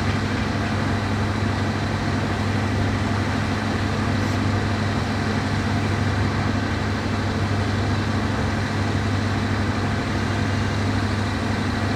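Diesel locomotive engine idling with a steady, deep hum.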